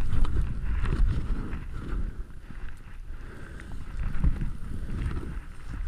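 Wind buffeting a helmet camera's microphone while skis rush through deep powder snow, the noise swelling and dipping through the turns.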